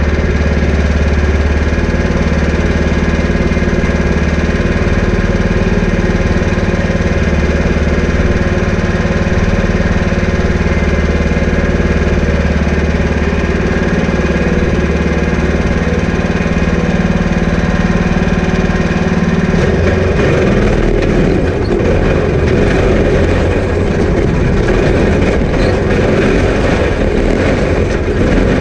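Off-road go-kart's small engine idling steadily, heard close up from its front bumper. About twenty seconds in the sound turns rougher and less steady as the kart pulls away and drives over the dirt.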